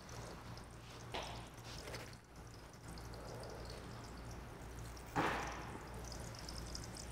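Faint kitchen work sounds under a low steady hum, with two short splashy rushes of noise about a second in and about five seconds in, the second the louder.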